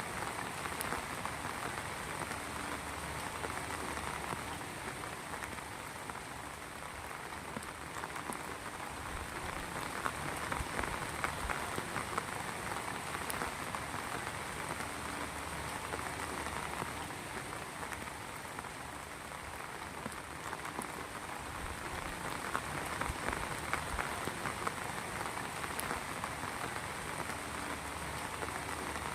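Heavy rain falling steadily, a dense patter of drops on a surface with slight swells in strength.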